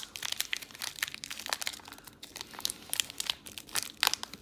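Packaging crinkling as it is handled, with irregular crackles throughout.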